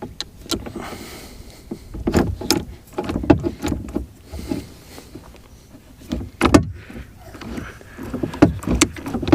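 Plastic parts of a Mercury outboard remote control being handled and pressed together: irregular clicks and knocks as the housing halves are fitted and lined up.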